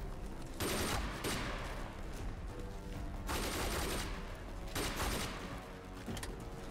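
Bursts of automatic rifle fire in a battle scene: three volleys, about a second in, around three seconds in and around five seconds in, with a music score underneath.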